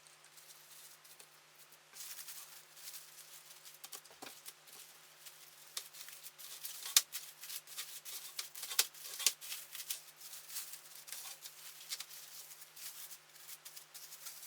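Irregular crackling and small clicks of hands and utensils working a sticky batch of homemade cold porcelain clay, with a few sharper clicks about seven and nine seconds in.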